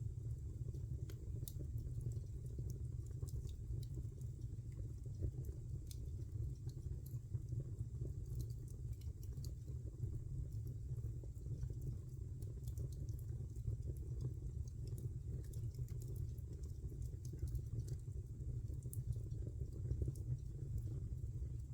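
Wood fire in a fireplace crackling: many small, irregular pops and snaps over a steady low rumble.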